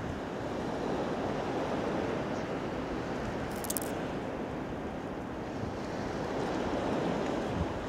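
Steady rushing of wind and sea waves, with wind buffeting the microphone. About three and a half seconds in there is a brief high-pitched rattle.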